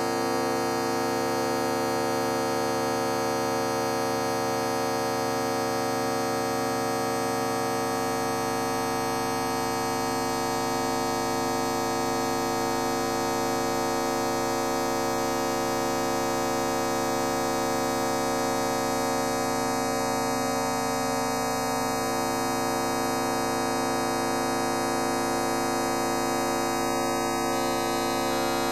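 Fart sound effect time-stretched enormously into a steady, unchanging drone: many held tones sounding together from low to high, with a buzzy hum underneath.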